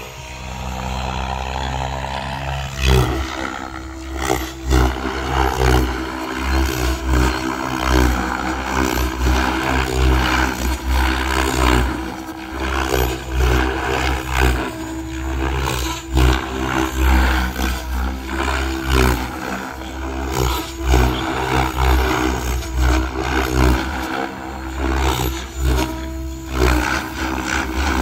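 SAB Goblin RAW electric RC helicopter in flight: the motor and main rotor whining and whooshing, the sound swelling and falling again and again as the helicopter manoeuvres.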